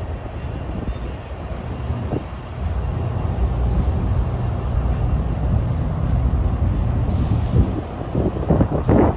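Freight cars rolling past on the rails, a steady low rumble of steel wheels with a few knocks and rattles near the end, as the train slows toward a stop.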